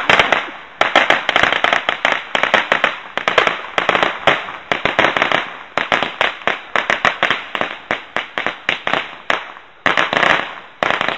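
A string of firecrackers going off in rapid, irregular cracks, several a second, with a brief lull just before ten seconds in and then a fresh run of loud cracks.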